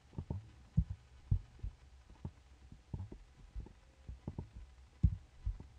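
Computer mouse clicks picked up by a desk microphone: soft, irregular low thumps at uneven spacing, over a faint low hum.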